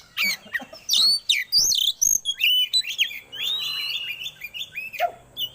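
Oriental magpie-robin (kacer) singing a rapid, varied song of whistles, chirps and quick rising and falling notes. This kind of recording is played to kept birds to stir them into breeding condition.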